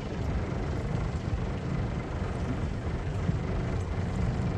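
Fishing boat's engine running steadily: a constant low rumble with a hiss of noise over it.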